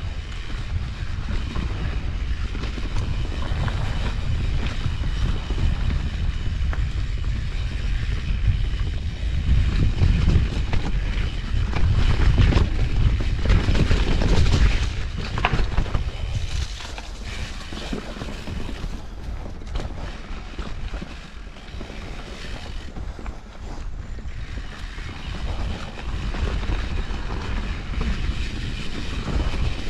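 Mountain bike being ridden down dirt singletrack: wind buffeting the microphone and tyres rolling on the trail, with scattered knocks and rattles from the bike. It is loudest a little past a third of the way in and eases off later.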